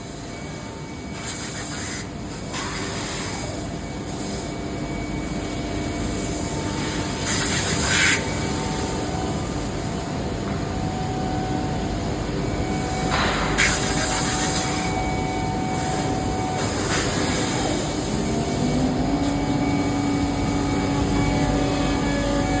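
5-axis CNC machine running, with a steady whine and machine noise and several short bursts of hissing. A low tone rises and then holds about three-quarters of the way through.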